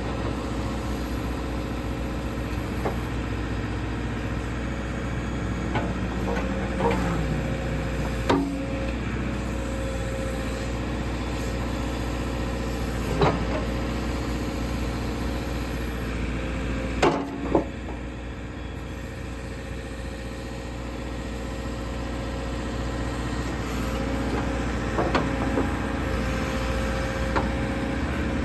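A JCB 3CX14 backhoe loader's diesel engine running steadily, with several sharp clanks over it, the loudest two in quick succession about two-thirds of the way through.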